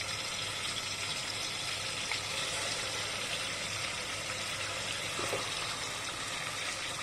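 Yogurt-marinated chicken pieces sizzling steadily as they go into hot oil in an aluminium pot.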